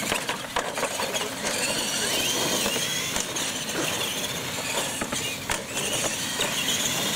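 Two electric R/C monster trucks racing on concrete: their motors and gears whine, the pitch rising and falling with the throttle, over tyre noise. A few short knocks come as they go over the ramps.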